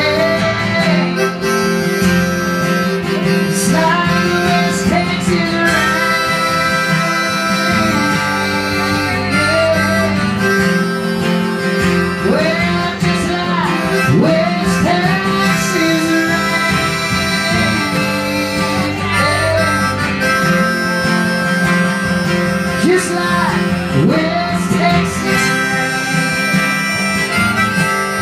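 Instrumental close of a live country song: steady strummed acoustic guitar under a lead melody whose notes bend and slide.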